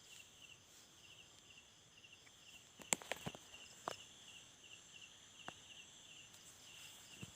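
Night insects chirping steadily in short, evenly repeated pulses, with a few scattered sharp clicks, the loudest about three seconds in.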